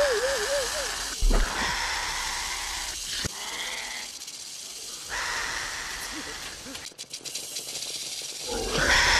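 Film sound of a Dilophosaurus giving a rattling hiss over heavy rain, with a few sharp knocks.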